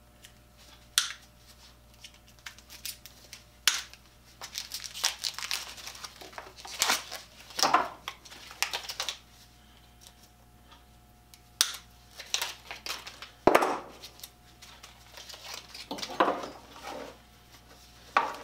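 Rustling and crinkling of a new orange power cord being uncoiled and handled on a workbench, with scattered sharp clicks and knocks, the loudest a little past the middle.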